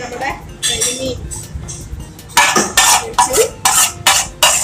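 Steel ladle scraping and clinking against metal as spiced masala is scooped and spread. Light scrapes at first, then from about halfway a quick run of about six loud, sharp scrapes.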